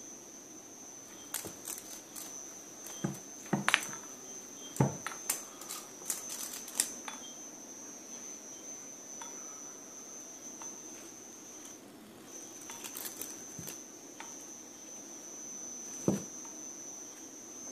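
A cricket trilling steadily in one high-pitched tone, which stops for a moment about twelve seconds in and then resumes. Scattered sharp taps and knocks over it, the loudest a few seconds in and near the end.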